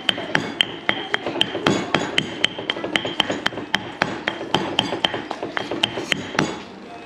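Granite mortar and pestle pounding Thai curry paste: the stone pestle knocks into the mortar about three to four times a second, each strike with a short ringing click, the strokes stopping near the end. The paste is near finished, its liquid already drawn out.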